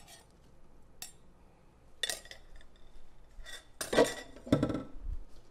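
Metal spoon and glass bowl clinking and knocking as pork belly is scooped from the bowl, a few scattered clinks at first and a louder cluster of clinks and knocks about four seconds in.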